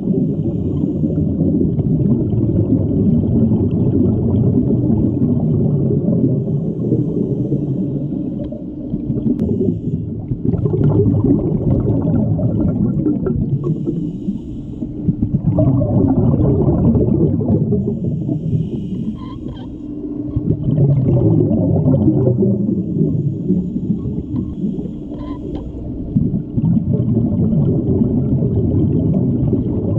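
Scuba diver breathing through a regulator underwater: long bubbly exhalations with short quieter breaks every five or six seconds, over a faint steady hum.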